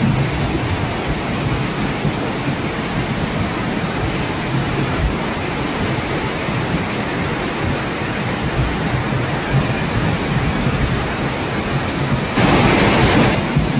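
Steady rushing water noise, with a louder surge lasting about a second near the end.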